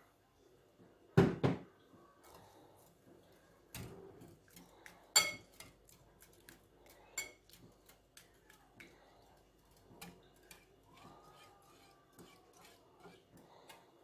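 Kitchen utensils knocking and clinking against dishes: a double knock about a second in, a ringing clink near the middle and another a couple of seconds later, with light taps between.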